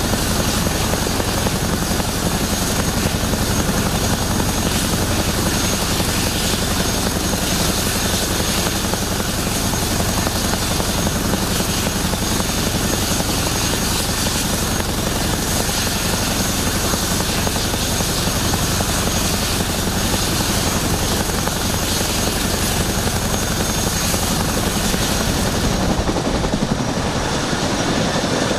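Boeing CH-47 Chinook running on the ground, its twin Lycoming T55 turboshafts and tandem rotors making a steady high turbine whine over a low rotor drone. The top end of the sound thins slightly near the end.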